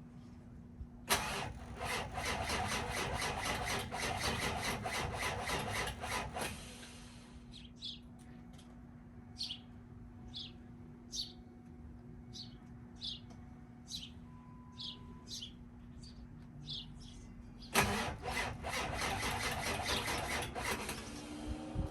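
Ford 7.3 Power Stroke V8 diesel being cranked by its starter for about five seconds without firing, then after a pause cranked again for about three seconds: a hard cold start even though the engine is plugged in, which the owner thinks may mean the starter is going bad.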